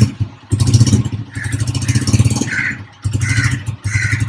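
Motorcycle engine running steadily, with its level dipping briefly twice.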